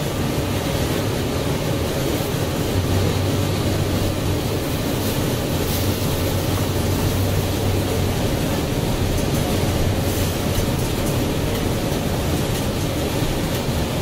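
Inside the cabin of a 2007 NABI 60-BRT articulated bus, its Cummins Westport ISL G natural-gas engine and Allison B500R automatic transmission running under way, with steady road and cabin noise. A low engine drone swells in a few seconds in and fades out again near the end.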